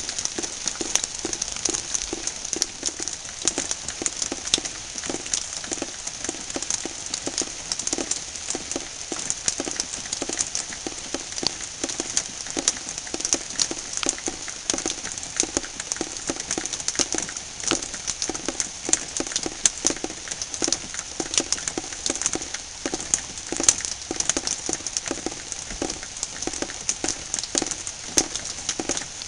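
Rain falling on a wet surface and into standing water, a dense, irregular tapping of drops with a steady hiss underneath.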